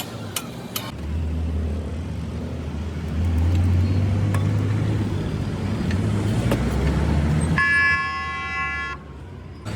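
A motor vehicle's engine rumbling loudly, then a steady horn blast lasting about a second and a half near the end, cut off abruptly.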